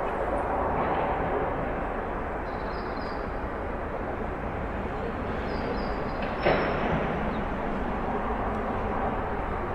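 Street ambience: a steady rumble of traffic with background voices. Two brief high squeaks sound a few seconds apart, and a single sharp knock comes about two-thirds of the way through.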